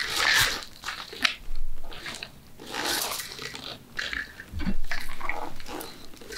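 Close-miked eating sounds: irregular crunching bites and chewing, coming in short bursts about every half second to second.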